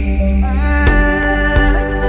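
Background music in an instrumental passage between sung lines: held notes over a steady low drone, with two percussive strikes about one and one and a half seconds in.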